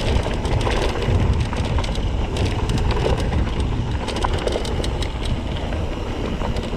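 Wind rumbling on the action-camera microphone while riding a mountain bike downhill on a dirt trail, with tyres on dirt and many quick rattles and clicks from the bike over bumps.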